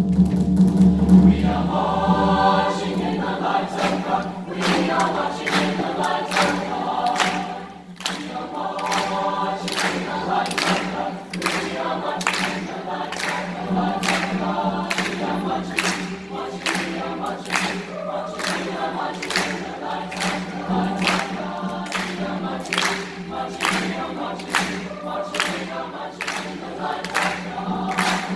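Mixed-voice choir singing in parts, unaccompanied, over a held low note. From about eight seconds in, the singers clap in time on the beat.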